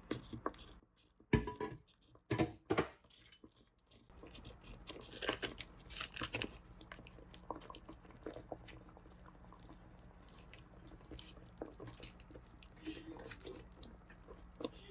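Someone eating: chewing and crunching, with scattered small clicks and knocks and a few louder bursts in the first half.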